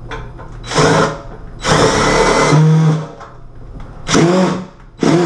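Cordless drill-driver driving screws through the back of a medicine cabinet into the wall, run in short bursts: three spin-ups, the second the longest at about a second, with a fourth starting right at the end.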